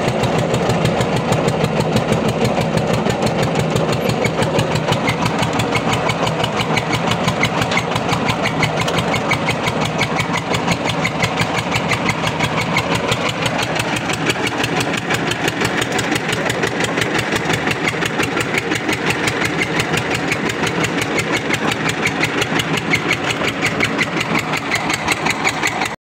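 Engine running steadily with a rapid, even beat while a steel wire rope hoists a tube-well pipe up out of the borehole.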